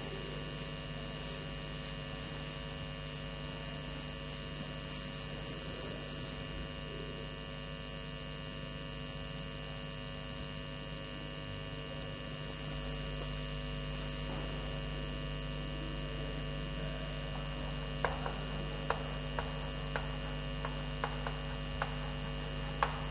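Steady electrical mains hum at several pitches. From about 18 seconds in, a run of light, sharp chalk taps and scratches as words are written on a chalkboard.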